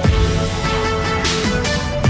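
Background electronic music with a heavy beat and a sustained synth melody.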